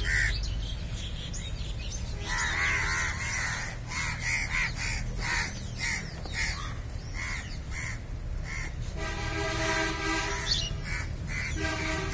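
Crows cawing over and over in short calls, followed about nine seconds in by a held, steady-pitched tone lasting about a second and a half.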